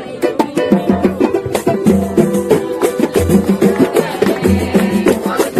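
A roda de samba played live: cavaquinhos strumming chords over deep bass drum notes about once a second and busy, sharp hand-drum strokes.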